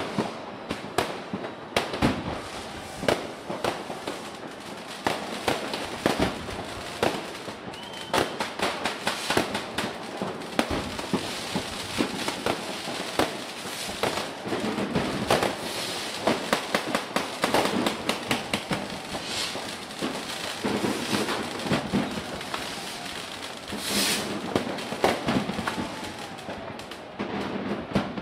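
Fireworks going off: a dense, irregular run of bangs from bursting shells over continual crackling, with a sharper crack near the end.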